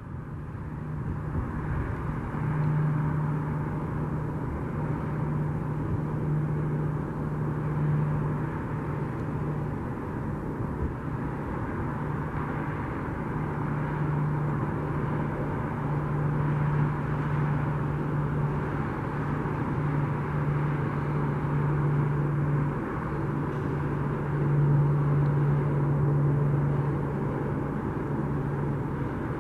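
Steady drone of aircraft engines running, with a low, even hum that fades in and out a few times.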